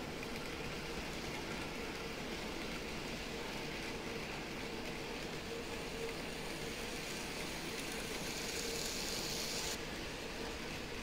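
N-gauge model train running on the layout: a steady motor hum with a rolling hiss that grows louder about eight seconds in, then cuts off suddenly near the end.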